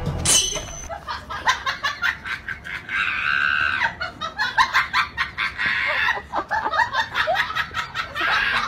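Laughter mixed with clucking chicken-like sounds and many short sharp clicks, likely comic sound effects.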